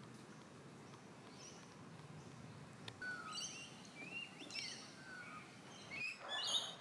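Birds calling in bushland: a faint background at first, then a run of short chirps and whistled calls from about three seconds in, the loudest call near the end.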